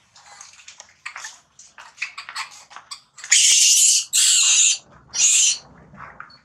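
Infant macaque crying in distress: a run of short, sharp squeaks, then three loud, harsh screams in the second half.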